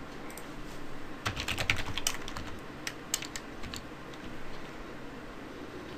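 Typing on a computer keyboard: a quick run of keystrokes starting about a second in and stopping a little past the middle.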